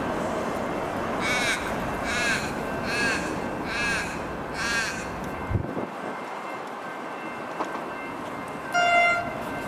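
A crow cawing five times in an even series, a little under a second apart, over steady background noise. Near the end comes a short, louder pitched sound.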